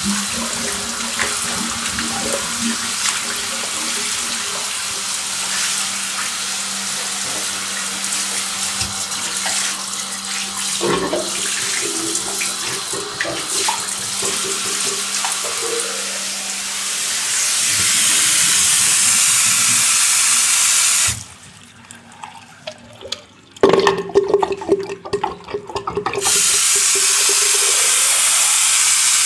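Water running from a tap into a sink, a steady hiss that grows louder about two-thirds of the way through. It breaks off briefly, with a few knocks and clatters, then runs loudly again near the end.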